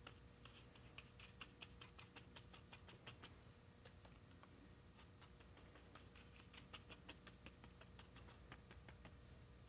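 Faint, quick, irregular tapping of a paintbrush stippling acrylic paint onto canvas, over a low steady hum.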